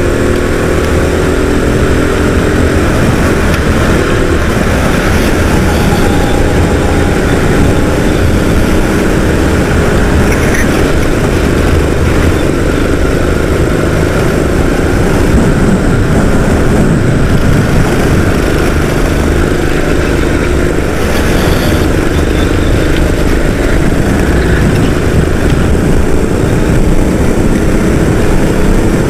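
Go-kart engine at race pace, heard from on board, its pitch rising and falling as the driver accelerates out of corners and lifts into them. A constant low rumble runs underneath.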